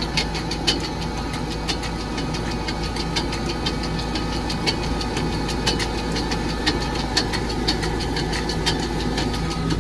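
Tractor engine running steadily while towing a loaded silage trailer across a field, with frequent irregular rattling clicks and knocks, several a second.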